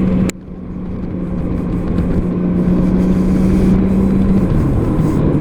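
2003 Honda Gold Wing's engine running steadily over a dense rush of noise; its note steps down slightly about four and a half seconds in. A sharp click sounds just after the start.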